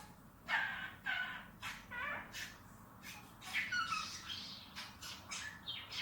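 Pet bird calling: a run of short squawks and chirps starting about half a second in, several gliding down in pitch.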